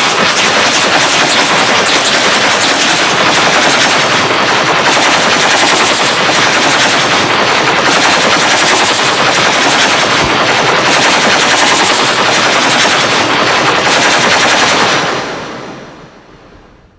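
Loud, harsh distorted noise with a rapid crackle, fading out near the end.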